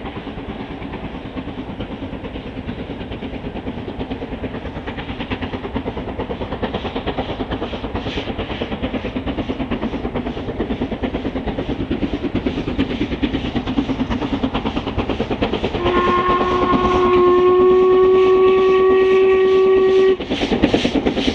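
A steam locomotive working hard at the head of a charter train, its exhaust beats coming in a fast, even rhythm and growing louder as it approaches. About three-quarters of the way through it sounds a long chime whistle for about four seconds, which stops abruptly. After that the exhaust is louder and sharper as the engine draws close.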